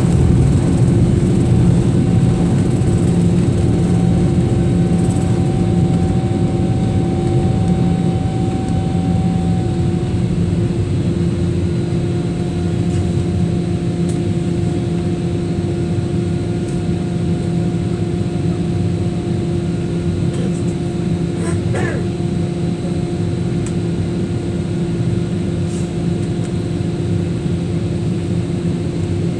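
Airliner jet engines running steadily during takeoff: a loud, even drone with a steady hum that eases off slightly over time. A brief faint rising sound comes about two-thirds of the way through.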